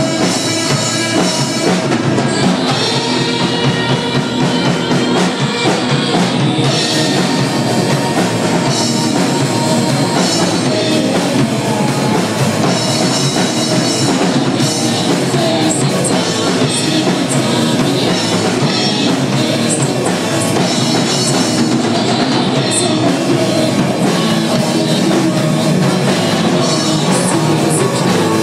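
Live rock band playing loud and without a break, the drum kit's cymbals and drums driving it along with guitar.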